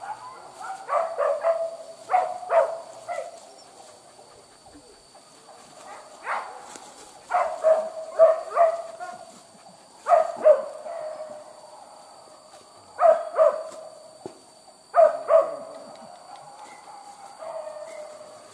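Hunting dogs barking in short runs of two to four barks, a run every two to three seconds, while chasing a wild boar.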